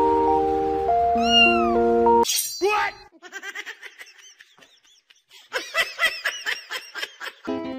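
Background music that cuts off a little after two seconds in, followed by a cat meowing: short, high, bending mews, a few loud ones first, then fainter, then a fast run of them near the end.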